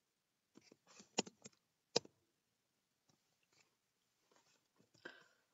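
Scattered clicks and taps of a computer keyboard as code is typed, with two sharper keystrokes about one and two seconds in and fainter taps later.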